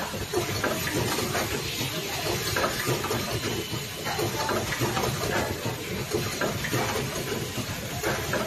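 Automated rotary-table QCW laser spot-welding machine running: a steady mechanical hum and hiss with frequent irregular clicks and clacks from its pneumatic actuators and moving fixtures.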